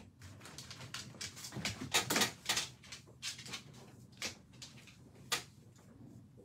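Irregular light clicks and knocks: a cluster of them between about one and three seconds in, then single, well-spaced ones, one of the sharpest near the end.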